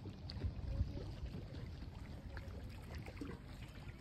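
Small waves on a lake lapping and splashing, over a low rumble that swells briefly about a second in.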